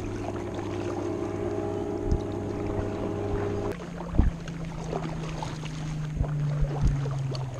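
Kayak paddle strokes, with several sharp knocks of the paddle against the hull, the loudest a little past halfway. A steady hum runs underneath and shifts to a lower pitch about three and a half seconds in.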